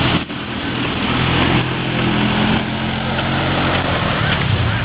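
ATV engine running steadily, its low engine note under a heavy hiss of noise.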